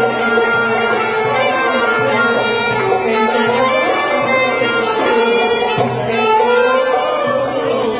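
Loud dance music at a party: a wavering lead melody over a stepped bass line and percussion, running without a break.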